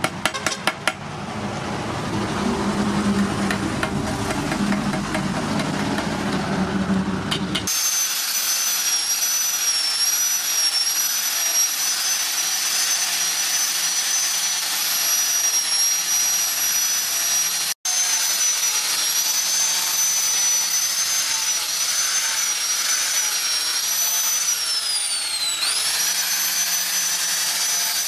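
Electric angle grinder with a flap disc running and grinding the steel billhook blade, a steady high whine that wavers slightly and sags and recovers once near the end. It is preceded by a few quick hammer strikes at the very start and several seconds of rougher, lower noise.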